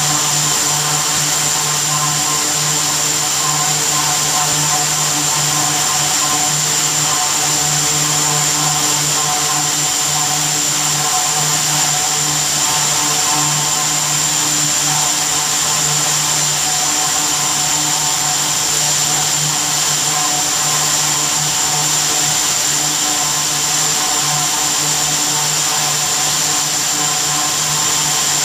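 Zari thread machine running steadily: rows of belt-driven spindles spinning, with a constant high whine over a low hum.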